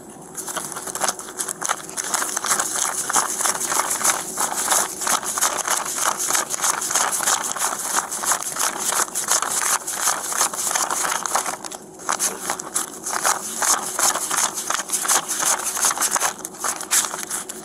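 Thin clear plastic bag crinkling and paper banknotes rustling as hands dig through the bag and count out stacks of bills, close to the microphone. The crinkling runs continuously, with a short pause about twelve seconds in.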